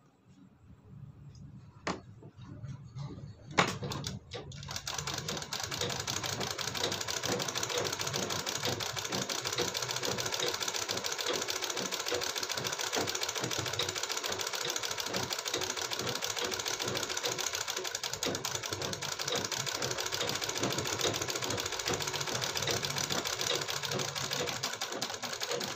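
Sewing machine stitching along a folded fabric strip, running at a fast, even rhythm from about four seconds in and stopping near the end. Two sharp knocks come in the first few seconds, before it starts.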